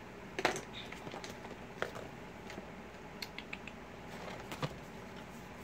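Scattered light clicks and taps from makeup items and brushes being picked up and handled: a sharper knock about half a second in and a quick run of small ticks around three seconds in.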